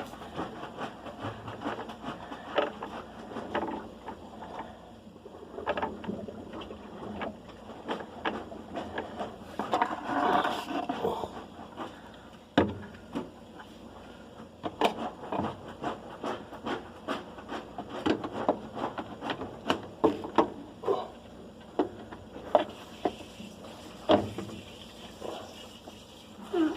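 Irregular knocks, clicks and scrapes from hands handling and working on a washing machine's parts.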